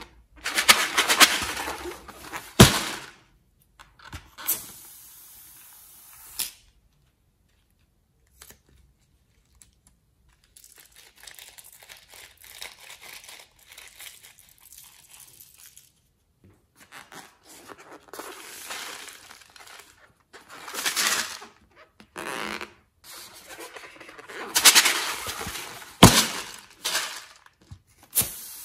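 Hands working slime-filled rubber balloons over a glass bowl of slime: rubbery rubbing and handling noise, with slime squeezed out of a balloon's neck during a softer stretch in the middle. Two sharp clicks stand out, one early and one near the end.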